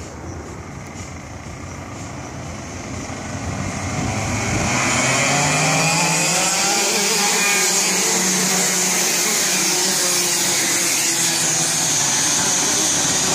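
A pack of racing kart engines, many buzzing at once, growing louder over the first few seconds as the field comes up to a rolling start, then holding a loud, steady high-pitched drone.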